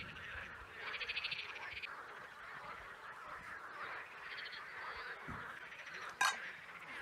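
A chorus of frogs calling, with rapid rattling trills about a second long, three times, over a constant chatter of calls. About six seconds in, one sharp clink as a metal camping mug is set down on a rock.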